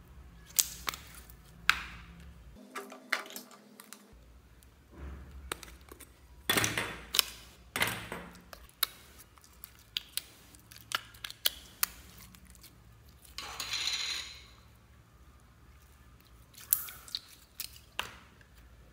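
Clear jelly slime being squeezed by hands and pressed out of a plastic tub: a scattered run of sharp sticky pops and clicks with short squelching smears between them.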